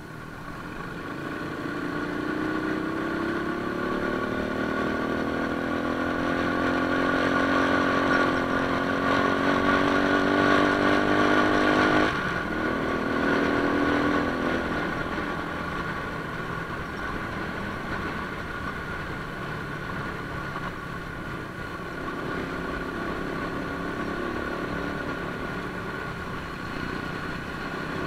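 Motorcycle engine under way, pulling with its pitch rising steadily for about twelve seconds, then the throttle closes and the note drops suddenly and runs on steadily at a lower pitch.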